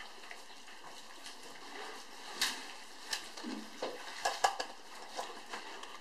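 African bush elephants drinking at a waterhole: a string of short splashes and sharp knocks of water from their trunks over a steady background hiss, loudest about four and a half seconds in.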